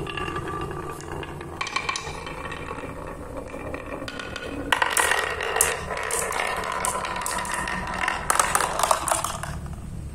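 Three purple balls rolling down a carved wooden serpentine groove with a ringing rumble, then clattering down a board of wooden pegs in a dense run of rapid clicks from about halfway in. The balls come to rest in a box near the end.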